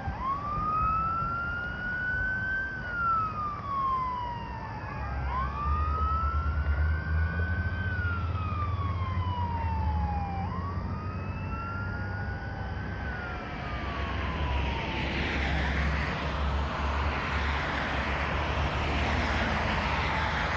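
Emergency-vehicle siren on a slow wail, rising and falling about every five seconds, over a low engine rumble. Near the end the wail fades and a steady hiss takes over.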